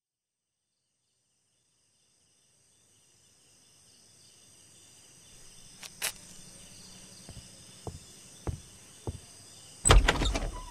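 After about three seconds of silence, a night ambience of crickets chirring fades in and holds steady. Slow footsteps sound over it, about one every half second or so, and a loud rattling clatter comes near the end.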